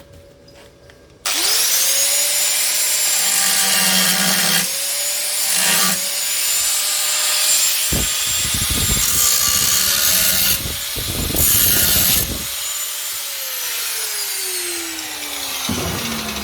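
Angle grinder spinning up about a second in and grinding through the steel of an FJ Holden front cross member. It runs loud and steady, with the pitch dipping as the disc bites, then winds down with a falling whine near the end.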